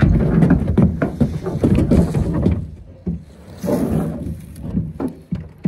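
A whitetail buck's carcass being hauled and slid across a plastic pickup bed liner, with scraping, thumps and boot steps on the bed. The handling is heaviest for the first two and a half seconds, then a few lighter knocks and scuffs.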